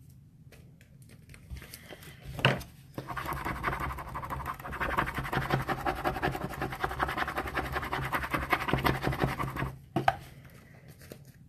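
Transfer tape being slowly peeled away from the backing of glitter vinyl: a dense, fast crackling of adhesive letting go, lasting about seven seconds. A sharp click comes just before it starts and another as it stops.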